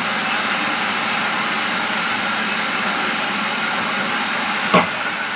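Electric food processor motor running steadily, whirling ricotta into a spreadable cheese while melted butter is added. A single short knock about five seconds in.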